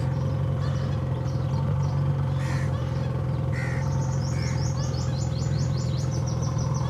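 Steady low drone of a boat engine running, with birds chirping over it: a few chirps about two and a half seconds in, then a rapid, even trill of high chirps from about four seconds in.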